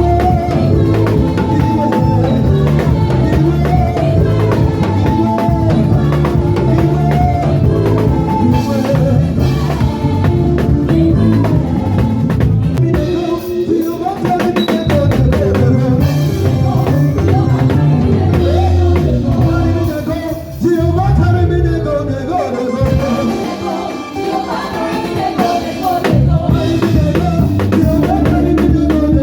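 Gospel praise and worship band playing a medley, with singing over a drum kit and heavy bass.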